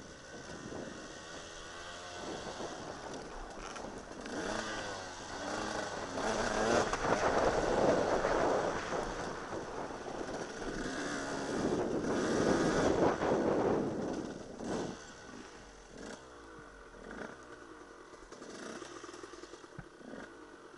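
Dirt bike engine under way, revving up and easing off with the throttle, with two loud full-throttle pulls in the middle, then dropping to a quieter lower note near the end.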